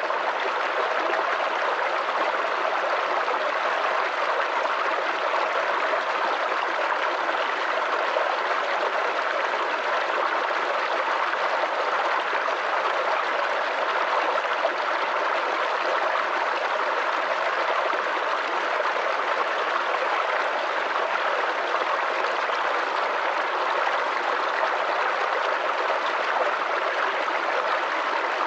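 Small forest creek babbling and gurgling over stones: a steady, unbroken rush of running water.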